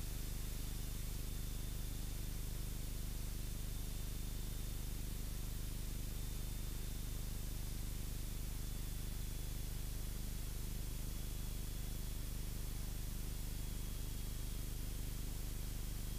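Cessna 172's piston engine and propeller running steadily at reduced power, about 2,000 RPM, heard as a low, even hum under a steady hiss, with a faint high whine.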